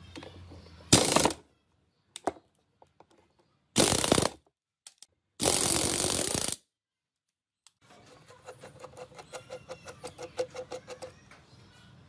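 Power impact wrench driving a socket on an extension bar against a nut on an old lathe's cast-iron cross-slide, in three short bursts. Then a run of quick metallic clicks, about six a second, that fades out near the end.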